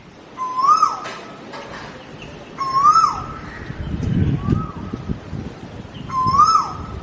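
An animal's call repeated about every two seconds, each call short and rising then falling in pitch, with a few low thuds about four seconds in.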